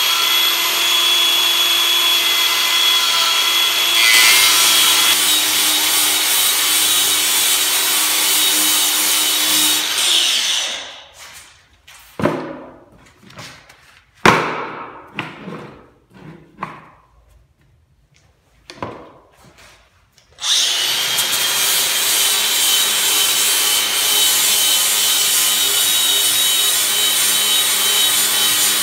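Angle grinder carving into oak, running steadily. About ten seconds in it is switched off and spins down. Scattered knocks and scrapes follow in the lull, then the grinder starts again abruptly about twenty seconds in and cuts on steadily.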